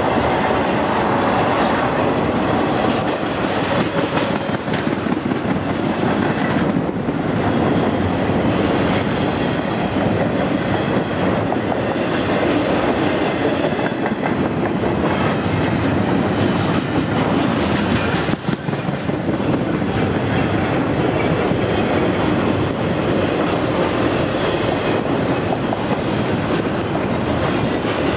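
Double-stack intermodal freight train rolling past close by: a steady, loud rumble of wheels on rail from the passing container and trailer cars.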